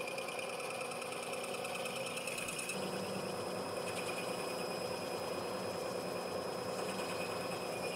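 Vertical milling machine running a boring head through the welded-up big-end bore of an aluminium connecting rod, a steady machine hum and whine of the final boring pass. A lower tone joins about three seconds in.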